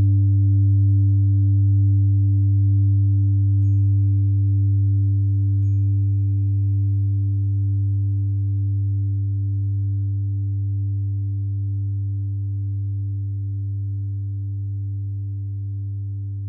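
Meditation sound bath: a steady low drone of layered tones from a binaural-beat track and an old singing bowl, slowly fading. About four seconds in, and again two seconds later, a 396 Hz tuning fork is lightly struck with a soft click and rings on as a thin pure tone with a faint high overtone.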